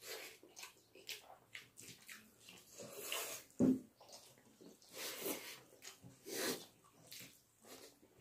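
Wet chewing and lip-smacking of people eating rice and chicken curry by hand, with irregular squelches and clicks from mouths and fingers mixing rice. One louder, lower mouth sound comes about three and a half seconds in.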